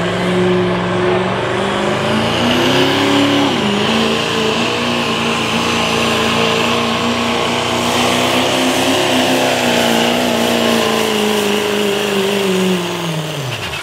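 Turbocharged diesel engine of a Chevrolet Silverado pickup at full throttle pulling a weight-transfer sled. The engine note climbs, dips once about three seconds in, then holds steady with a high whine over it, and winds down near the end as the throttle is let off.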